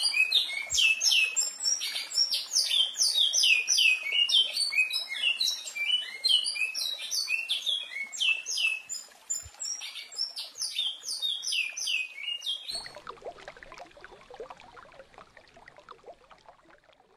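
Recorded songbird song of the kind used to teach captive birds to sing: a fast, continuous run of varied chirping and whistled notes. It stops about 13 seconds in, and a fainter rough noise fades out after it.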